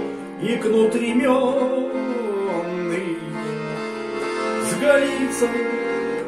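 A man singing a Russian folk song over a bayan (chromatic button accordion), which holds steady chords under his voice.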